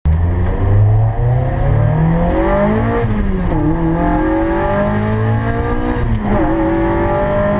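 A car engine accelerating hard through the gears: its pitch climbs steadily, falls back sharply at an upshift about three seconds in, climbs again and falls back at a second upshift a little past six seconds.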